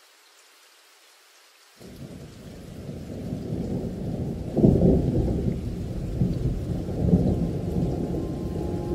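Low rolling thunder that starts suddenly about two seconds in and swells in waves, with two loudest surges in the middle and later part.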